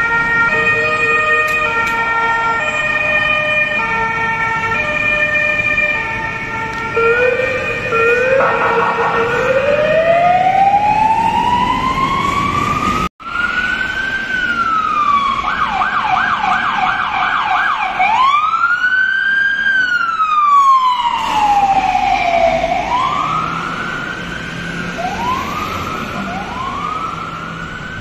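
Several police escort sirens sounding at once in stepped two-tone patterns, then sweeping into a rising wail. After a cut, the VW e-Golf blood-transport car's electronic siren cycles through a long rising and falling wail, a few seconds of fast yelp, another long wail, then shorter repeated wails.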